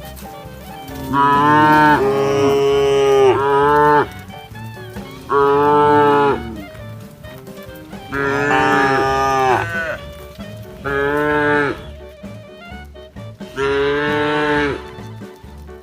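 Cow mooing repeatedly: several long, loud moos, each lasting one to three seconds, with short pauses between them, over background music with a steady low beat.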